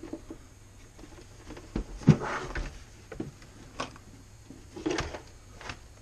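Plastic vacuum-cleaner housing being handled and opened up: scattered clicks and knocks of hard plastic, the loudest about two seconds in.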